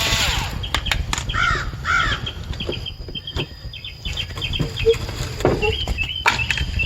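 Sharp clicks and knocks of plastic HVAC case parts and a hand tool being worked while an actuator bracket comes off. A bird gives two short calls about one and a half seconds in, with small chirps after.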